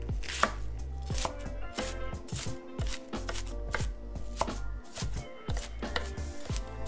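Chef's knife chopping an onion on a wooden cutting board: an irregular run of knife strikes against the wood.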